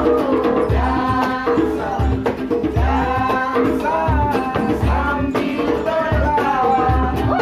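A song with a sung melody over bass, a kick drum on a steady beat about every 0.7 s, and a shaker.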